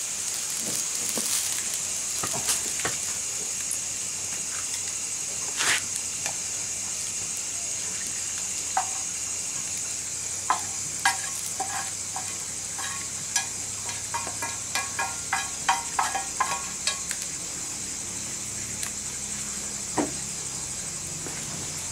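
Greens frying in a pan over an open wood fire: a steady sizzle and hiss throughout. About halfway through comes a quick run of metal clinks and scrapes against the pan.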